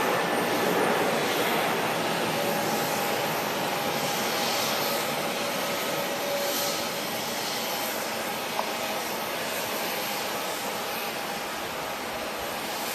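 Four CFM56-5C turbofan engines of an Airbus A340-300 climbing out after takeoff: a steady distant jet roar with faint steady whining tones, slowly fading as the airliner climbs away.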